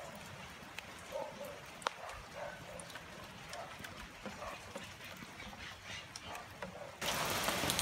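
Light rain on paving and plastic buckets, with scattered drips ticking and short, faint calls repeating in the distance, like a dog barking. About seven seconds in, the rain suddenly turns much louder.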